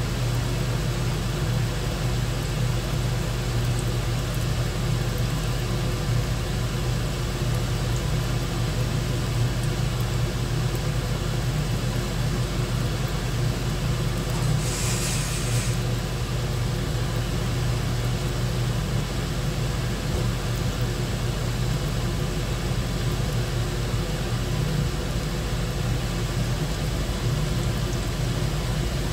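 Steady low mechanical hum that holds level throughout, with a brief hiss about fifteen seconds in.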